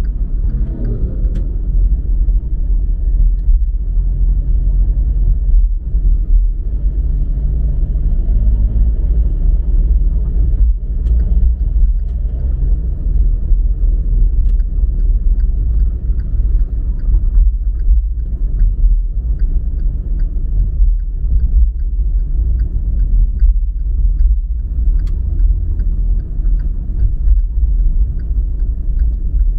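Car driving on city streets: a steady deep rumble of road and engine noise, with the engine note rising and falling in pitch during the first half.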